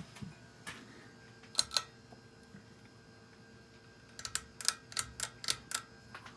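Sharp clicks over a faint steady hum: a pair about a second and a half in, then a quick run of about eight between four and six seconds in.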